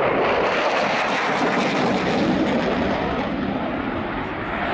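Dassault Rafale C's twin M88 turbofans roaring on afterburner during a display manoeuvre, with a crackle in the first couple of seconds. The roar eases slightly near the end as the jet moves away.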